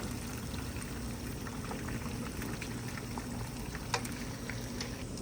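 Fish frying in hot oil as it turns crispy: a steady sizzle with scattered small pops and one sharper crackle about four seconds in.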